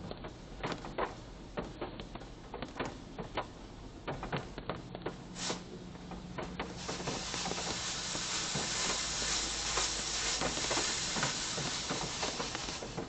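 Heard from inside a car in a Coleman Hanna Water Wizard touchless car wash: water ticks and patters unevenly on the car body. About halfway through, a steady high-pressure spray hisses against the car for about six seconds, then cuts off suddenly.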